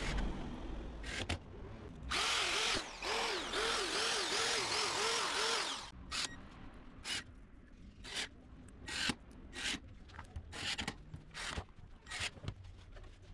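Cordless drill working a bit through the holes of a plastic drawer bracket into an MDF panel. It makes one continuous run of about four seconds with a pitch that swells and drops repeatedly, then a string of short trigger bursts.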